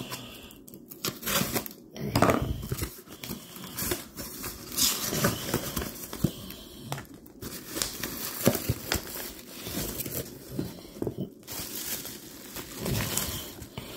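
Plastic bubble wrap and packing crinkling and rustling as it is handled and pulled out of a cardboard shipping box, with irregular sharp crackles.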